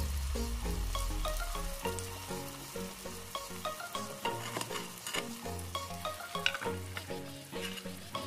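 Gravy-covered beef sizzling and crackling on a hot cast-iron sizzling plate, under background music with a melody of short notes and a bass line.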